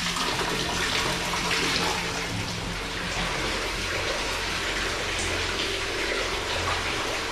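Water flowing steadily through an old irrigation tunnel, an even rushing sound with no break.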